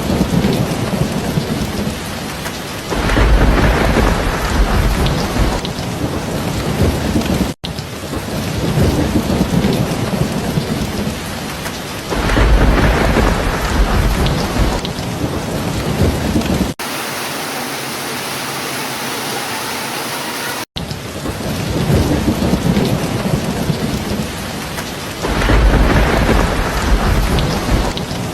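Heavy, steady rain with a low rumble of thunder swelling up about every nine seconds, as the recording repeats. For a few seconds past the middle it switches to a hissier patch of rain with no thunder. The sound cuts out for an instant at each splice.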